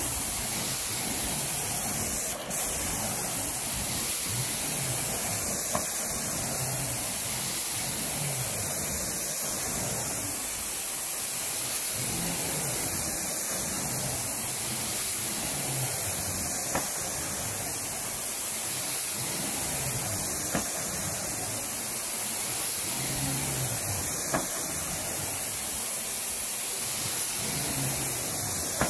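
Carpet extraction wand drawing water and air up through the carpet with a steady, high-pitched rush of suction. The sound shifts with each push-and-pull stroke, about every three to four seconds, and breaks briefly about two and a half seconds in.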